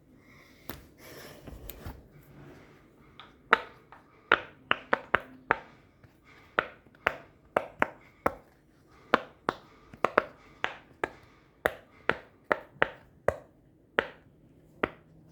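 Pop-it fidget toy being popped, bubble after bubble: a string of short, sharp pops, about two or three a second, starting a few seconds in.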